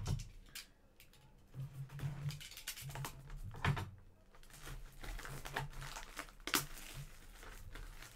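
Plastic shrink-wrap crinkling and tearing as a sealed box of trading cards is opened, with irregular rustles and a few sharper crackles.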